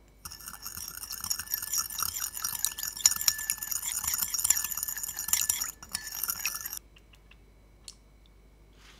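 Metal spoon stirring sugar into lemon juice in a ceramic bowl, scraping and clinking rapidly against the bowl. It breaks off briefly near six seconds and stops about a second later.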